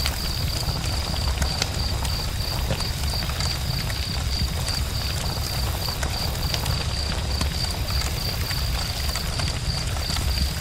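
Campfire burning, with scattered crackles and pops over a steady low rumble. A steady high pulsing tone runs alongside.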